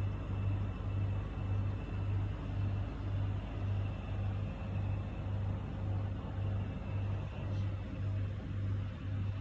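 A machine's low-pitched hum, pulsing evenly about twice a second.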